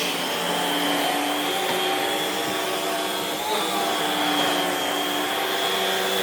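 Homemade central vacuum running through its hose and cleaning head on carpet: a steady hiss of rushing air with a high whine, the pitch shifting slightly about halfway through. Mostly the hiss of air at the hose is heard, not the vacuum motor itself.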